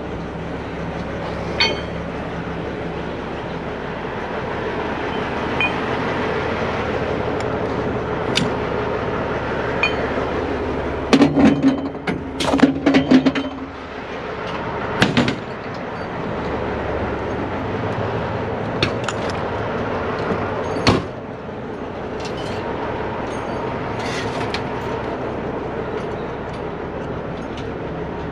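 Heavy-duty tow truck's diesel engine running steadily, with metal clanks and knocks of tow gear and toolbox doors being handled over it, loudest in a cluster of clanks near the middle.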